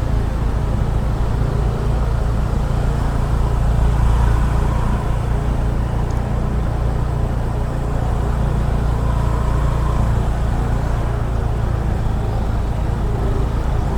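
Steady low rumble of a car's engine and road noise inside the cabin while driving in slow traffic.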